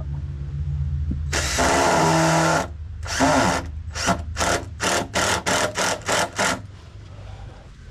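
Power drill driving a fastener: one long run of about a second, a shorter run, then a string of eight quick trigger bursts, about three a second. A low steady hum sits underneath at the start.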